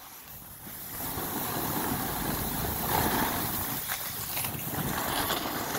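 Snowboard sliding down a groomed slope: a steady scraping hiss of the board over the snow, mixed with wind on the microphone, getting louder about a second in.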